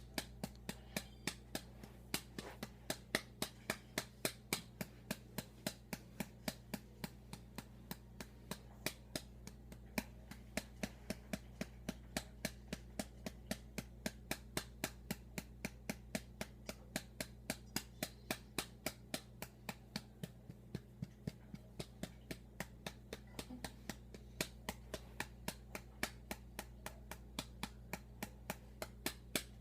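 A hand patting a baby's back to bring up a burp: light, even pats at about three a second, over a low steady hum.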